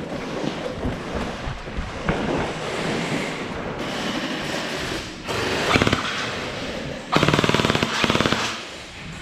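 Electric gel blasters firing full-auto bursts. A short burst comes about five seconds in and a longer rapid clatter runs for about a second and a half near the end, over a rustling background.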